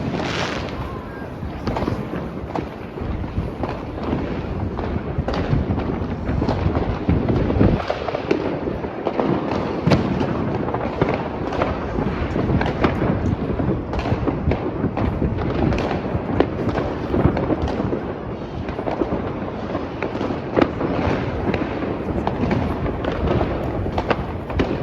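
Fireworks going off without a break: many overlapping bangs and crackles over a steady rumble.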